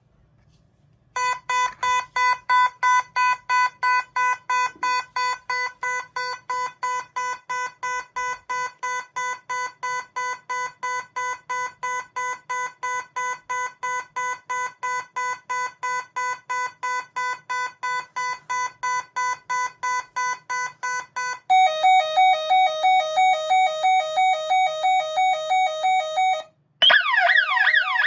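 Gardtec 591 intruder alarm sounding its electronic tones: a pulsed beeping of about three beeps a second for some twenty seconds, then a louder, higher warbling pulsed alarm tone. Near the end it cuts out briefly and the external siren starts with a fast, repeating rising sweep.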